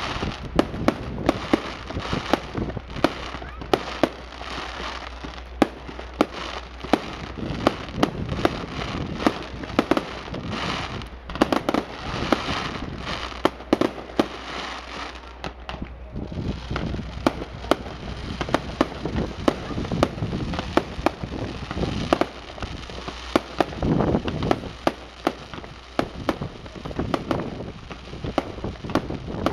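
Aerial fireworks bursting in a dense, irregular run of sharp bangs and crackles, several a second at times, with no let-up.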